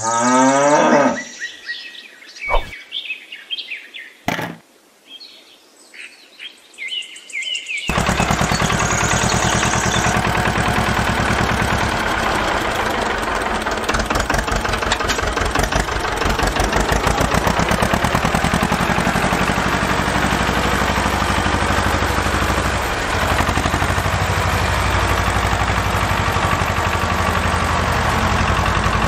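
A cow mooing once, its pitch rising, then from about eight seconds in a tractor engine running steadily.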